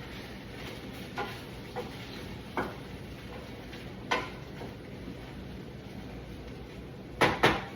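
Scattered light clicks and taps of kitchen utensils against cookware, with a sharper double clack near the end, over a steady low hiss.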